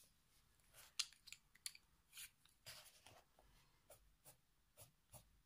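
Coloured pencil, a Faber-Castell Polychromos, scratching faintly on paper in short, irregular strokes.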